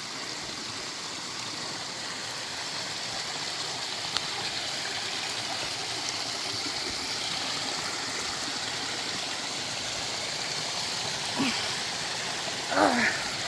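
Tiny creek waterfalls, a steady rush of flowing water.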